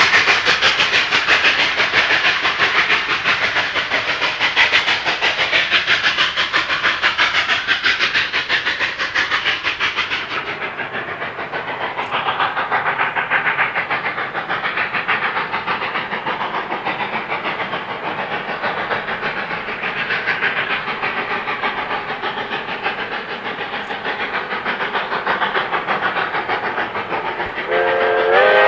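A passing train rolling by with a steady rushing wheel-and-rail noise, which loses some of its hiss about ten seconds in. Near the end the train's horn sounds a loud multi-note chord.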